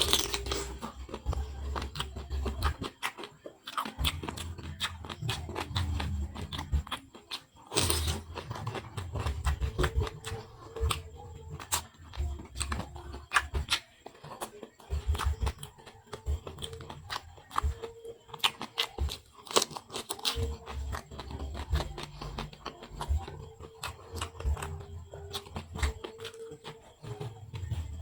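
Close-miked eating sounds: wet chewing, smacking and crunching of shrimp and squid, with many sharp mouth clicks and snaps.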